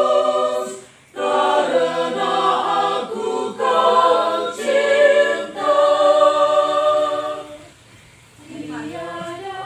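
A small mixed group of voices singing together a cappella in long held notes, phrase by phrase with short breaks. The singing stops briefly near the end, then quieter voices come back in.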